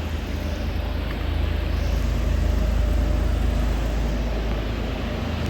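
Low, steady rumble aboard a moving river tour boat, swelling slightly in the middle.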